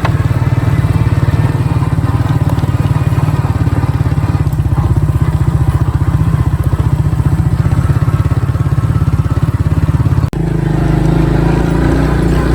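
Small single-cylinder engine running steadily with a fast, even pulse. About ten seconds in the sound drops out for an instant and comes back changed.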